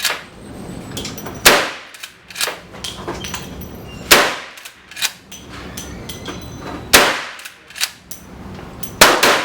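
Winchester Model 1894 lever-action carbine in .357 Magnum firing hot .38 Special loads: four sharp shots roughly every two and a half to three seconds, each with a trailing echo. Fainter clicks and pops sound between them.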